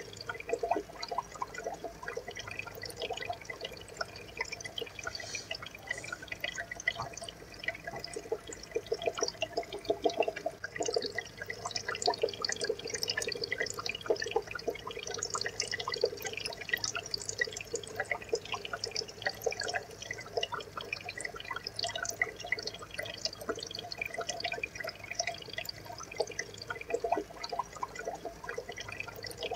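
Water trickling and dripping in an aquarium: a steady run of small drips and splashes.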